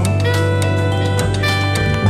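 Background music: held melodic notes over a steady beat.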